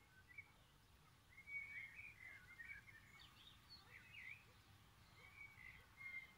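Faint birdsong: short, quick chirping and warbling phrases starting about a second in, over a low, steady background hum.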